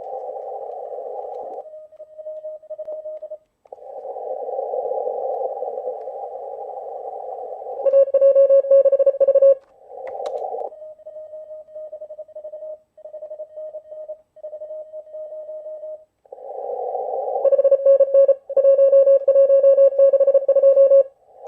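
Morse code from a ham radio receiver in CW mode: hiss of band noise through a narrow CW filter, with a station's keyed tone beeping out dits and dahs. A louder, cleaner keyed Morse tone comes in about eight seconds in for a second and a half, and again from about seventeen seconds to near the end.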